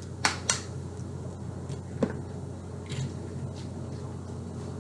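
Eggs being cracked against a bowl for an egg wash: two quick sharp taps, then a single tap about two seconds in and a few faint ticks, over a steady low hum.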